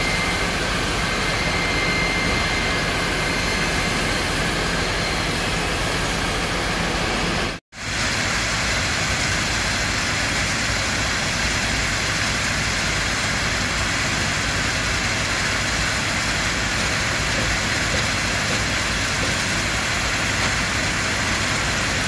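Paddy rice pouring off the end of a running belt conveyor into a wooden cargo boat's hold: a steady rushing noise with a low machine hum beneath it. It breaks off for an instant about eight seconds in, then carries on unchanged.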